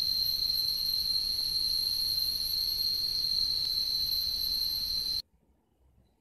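Steady high-pitched insect drone, a continuous cicada- or cricket-like buzz, cutting off abruptly about five seconds in.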